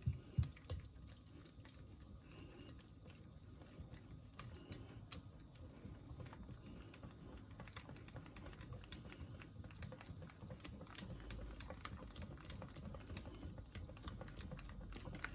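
Wire whisk stirring a sauce in a bowl, its wires clicking lightly and irregularly against the bowl.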